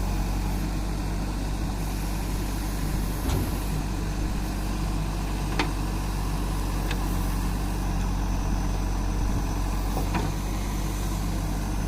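Heavy diesel engine running steadily at low speed, a deep even hum, with a few sharp clicks or knocks over it.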